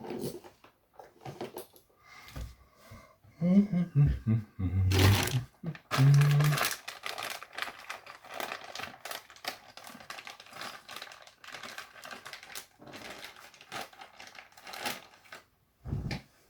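Rummaging through a box and bags of small metal and plastic connectors: rapid rattling clicks and plastic-bag crinkling, with a few short low voice-like sounds about four to seven seconds in.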